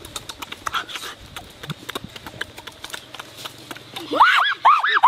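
Chewing and lip-smacking while eating, soft clicks over a faint low hum. About four seconds in, a rapid run of short, high, rising-and-falling hoots starts, about three a second, made through pursed lips.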